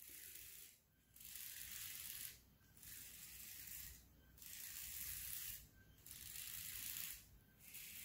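Faint whirring hiss of the small electric motors and gearing of a Mould King AImubot brick-built tracked robot running its demo routine, in repeated stretches of about a second with brief pauses between moves.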